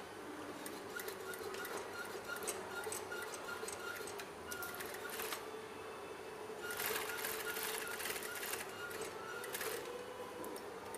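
Mitsuyin industrial sewing machine stitching a metal zipper onto fabric in two runs, starting about a second in and again near seven seconds, with its motor humming steadily in between.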